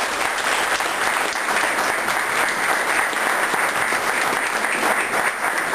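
Audience applauding: many people clapping hands at a steady, even level.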